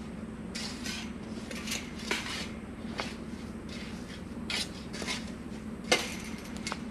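Shovel scraping and scooping dirt out of a wheelbarrow: a run of short scrapes with sharp metallic clinks of the blade, the loudest clink about six seconds in.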